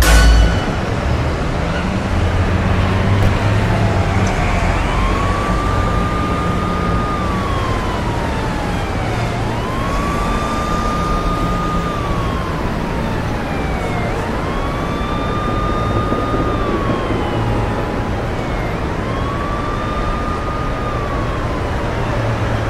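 Emergency vehicle siren wailing in slow cycles: it rises, holds, then falls, four times in all, about one every four to five seconds. Under it runs a steady low hum of city traffic.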